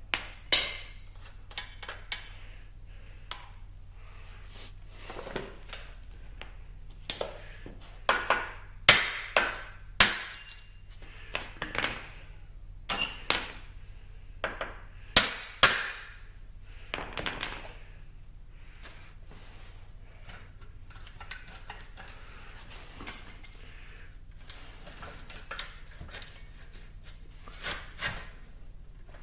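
Metal hand tools clinking and knocking against the rear-wheel hardware of a 1991 Honda CBR600 F2 motorcycle during rear wheel removal: scattered sharp metallic clinks, some with a brief ringing, coming thickest in the middle, over a steady low hum.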